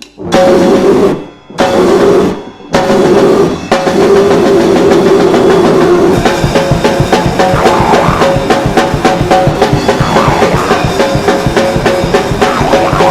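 A band playing rock music with a drum kit. It hits a few loud accents with sudden short stops in the first three seconds, then plays on without a break to a fast, busy drumbeat.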